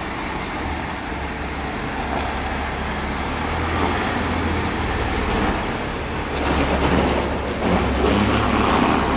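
A car being driven: steady low engine hum under tyre and road noise, getting louder and rougher over the last few seconds.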